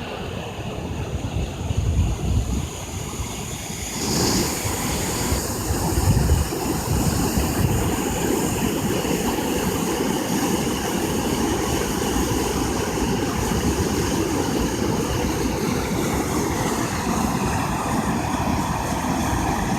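Steady rush of water from a river waterfall, with wind buffeting the microphone in the first few seconds; the sound changes about four seconds in and then holds even.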